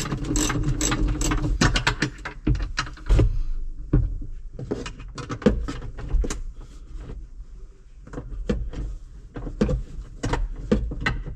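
Irregular metal clicks, clanks and knocks of a tractor seat base and its suspension mechanism being handled and worked on with hand tools, with a short hum in the first second or so.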